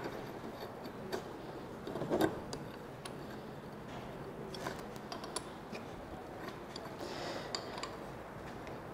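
Light, scattered metal clicks and ticks as bolts are set and turned by hand in the back plate of a three-jaw self-centring lathe chuck, with a faint room hum.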